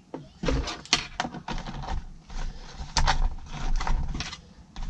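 A small cardboard box and a coiled plastic cable being handled and packed away by hand. Irregular taps, clicks and rustles start about half a second in.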